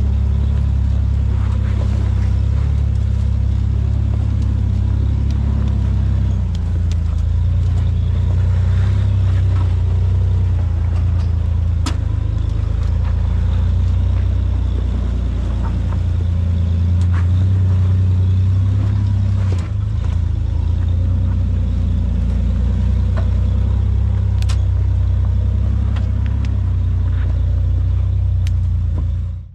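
A Jeep Wrangler's engine running steadily at low revs, a loud low rumble whose pitch shifts slightly about six seconds in, with scattered sharp clicks and knocks over it.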